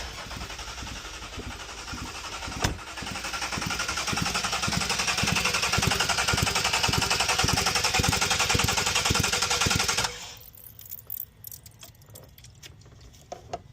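Jeep engine being cranked over on the starter motor without firing, freshly fitted with new rocker arms and lifters: a steady hiss with regular knocks that speed up to about four a second, cutting off abruptly about ten seconds in.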